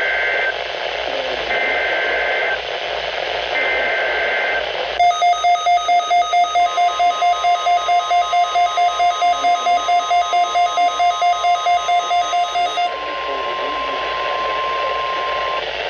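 Emergency Alert System signal on a radio receiver: three short bursts of the SAME header's data tones, a second apart, then rapid electronic alert beeping about four times a second over a steady warning tone. The beeping stops about 13 seconds in, and the steady tone runs on alone briefly before cutting off, all over a hiss of static.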